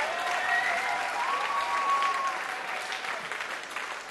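Concert audience applauding after a song, the clapping slowly dying down, with a few held high tones over it during the first couple of seconds.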